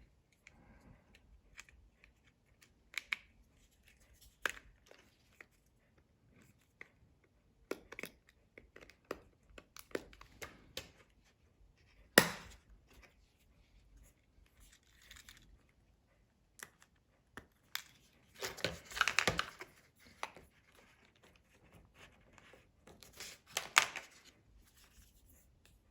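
Scattered small clicks and taps from handling an iPhone 5S and its parts during reassembly, with one sharp click about halfway through. There are two brief crinkling, rustling spells later on.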